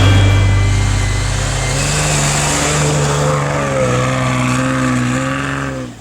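A vehicle engine running under load, its pitch wavering slightly up and down, cutting off abruptly at the end.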